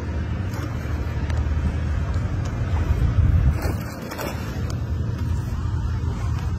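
Boat motor running with a steady low rumble, under wind and water noise.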